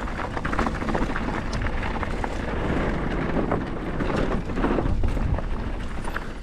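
Mountain bike riding down a dirt trail, heard through a GoPro action camera's microphone: a heavy wind rumble with the rattle and clicks of the bike and tyres over the ground. The noise eases off near the end.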